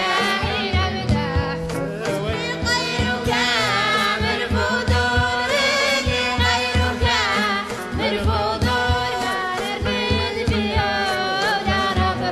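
Music: voices singing, the melody wavering and gliding, over a steady low beat.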